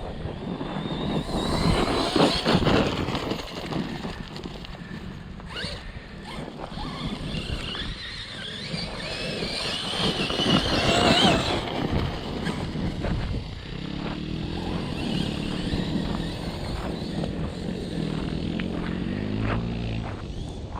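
Electric RC truck driven hard over rough ground: its motor whines up and down with the throttle, loudest in two surges about two and ten seconds in, over the rough crunch of tyres and chassis on the terrain.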